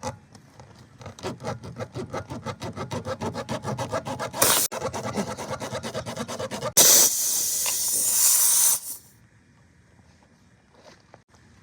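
A metal tool rasps rhythmically in a screw puncture in a car tyre, many quick strokes a second, as the screw is worked out or the hole reamed. It is followed by a loud, steady hiss of air escaping from the punctured tyre for about two seconds, which cuts off suddenly.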